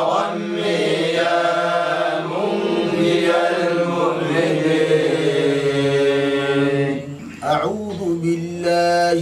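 Men chanting an Arabic supplication in long, drawn-out melodic notes. There is a brief pause for breath about seven seconds in.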